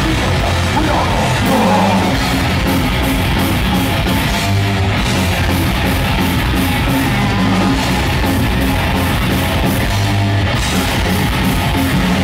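Live thrash metal band playing loud, with distorted electric guitars, bass and drums, the cymbals striking in a steady fast rhythm.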